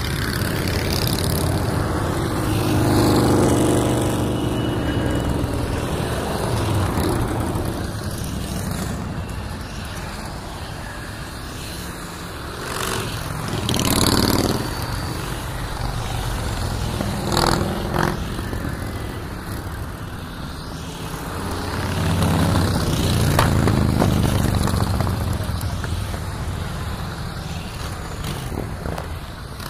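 Cruiser motorcycles riding past one after another, their engines running with a low rumble. The sound swells and fades several times as bikes pass close by.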